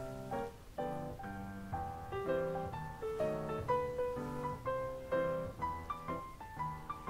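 Background piano music: a gentle melody over changing chords, notes struck and left to fade.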